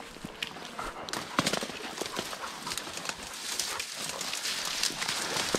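Footsteps crunching and swishing through dry prairie grass and brittle brush, dry stems rustling and crackling with each step. The rustle grows louder in the second half as the walker pushes into thicker brush.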